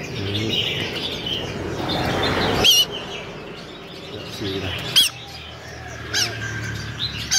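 Many caged songbirds chirping and twittering together. A few loud, sharp whistled calls cut through, the first a little under three seconds in and then about one every second or so.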